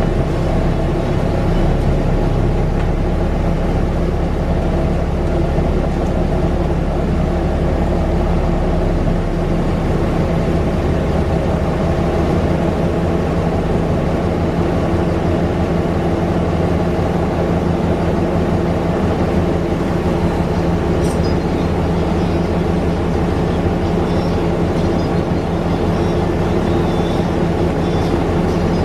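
Alexander Dennis Enviro400 double-decker bus's engine and drivetrain running steadily. The deep note shifts about nine seconds in.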